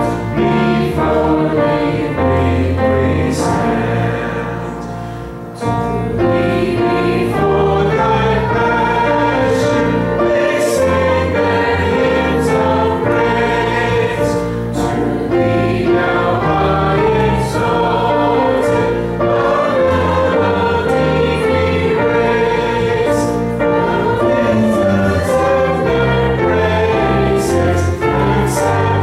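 Congregation singing a hymn together, led by singers at the front and accompanied by a band with a bass guitar line. The sound dips briefly about five seconds in, then comes back at full strength.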